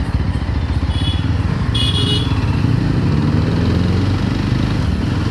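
Yezdi Roadster's single-cylinder engine running on the move, its pitch rising between about two and four seconds in as the bike picks up speed.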